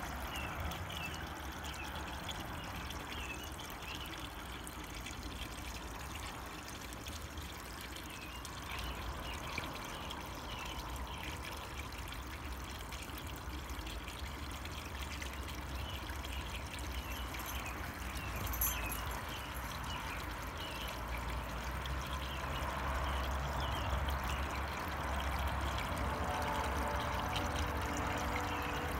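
Water steadily trickling and splashing into a koi pond from an inflow at the surface.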